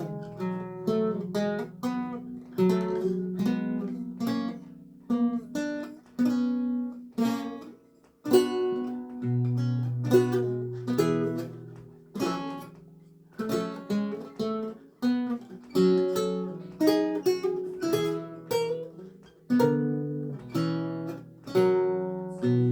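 Lute music: single plucked notes and chords, each ringing and then dying away, with a brief pause about eight seconds in and low bass notes held under the melody afterwards.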